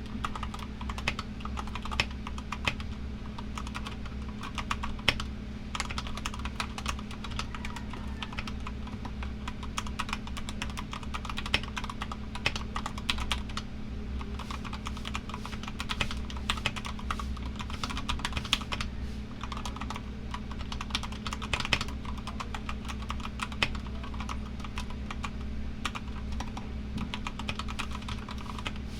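Continuous typing on a GK64XS mechanical keyboard with a fiberglass plate, Keyfirst Gateron Cream 62g linear switches lubed with Krytox 205g0, and XDA keycaps: a dense, uneven stream of keystrokes. The steady hum of an air conditioner runs underneath.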